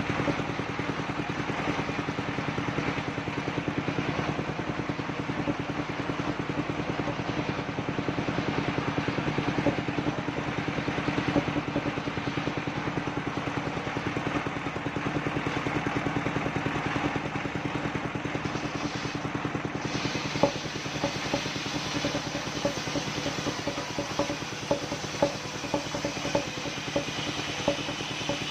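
Engine driving a mobile circular-saw sawmill, running steadily. A string of sharp knocks and clatters joins it in the last third.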